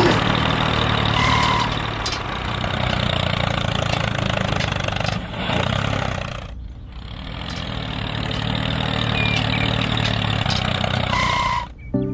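Tractor engine running steadily with a low rumble. It drops out briefly about seven seconds in and cuts off just before the end.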